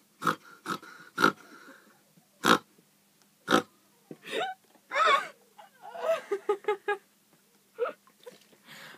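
People coughing and spluttering after taking a spoonful of dry ground cinnamon: a run of sharp single coughs about a second apart, then a busier stretch of short choked, rasping bursts.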